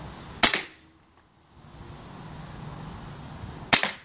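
Western Arms Beretta M84FS Cheetah gas blowback airsoft pistol firing two single shots about three seconds apart, each a sharp crack.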